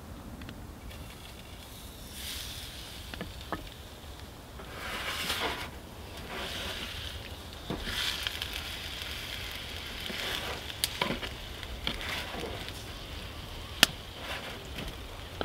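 Steak sizzling in a hot frying pan on a wood stove, a steady hiss that starts about halfway through once the meat is laid in. Sharp clicks of tongs and knife against the pan come through it, the loudest near the end.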